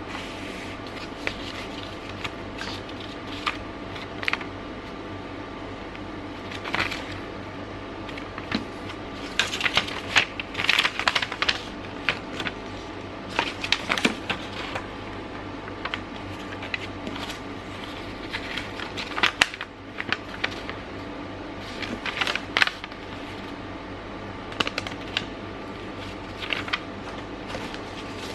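Irregular clicks, taps and crinkling from a Logitech G304 mouse's box and packaging being handled and opened, with a flurry of handling about a third of the way through. A steady faint hum sits underneath.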